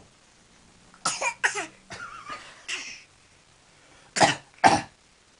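Short deliberate play coughs: two about a second in, one near three seconds, then a pair of loud, sharp coughs about four seconds in. They are made in a game of getting a baby to copy coughing.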